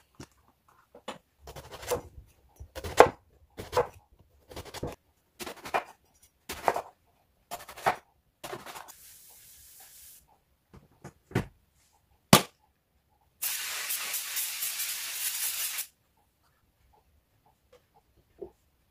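A chef's knife cutting through a block of halloumi onto a wooden chopping board, about eight strokes roughly a second apart. Then two sharp knocks from the waffle maker's lid and a steady hiss of about two and a half seconds that starts and stops abruptly.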